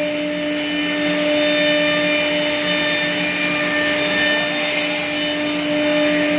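Multi-spindle wood CNC router running: a steady whine from its electric spindle motors over a continuous hiss.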